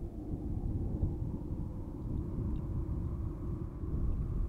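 Steady low rumble of outdoor wind buffeting the microphone.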